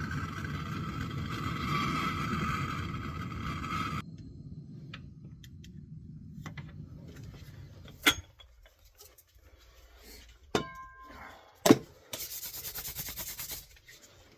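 Propane soldering torch burning with a steady hiss on a copper fitting, cut off sharply about four seconds in. Then a few sharp clicks of tools on metal, a short squeak, and near the end a second or so of quick rubbing strokes.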